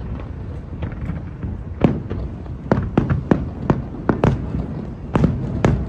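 Fireworks bursting: a run of sharp bangs at uneven intervals beginning about two seconds in, over a steady low rumble.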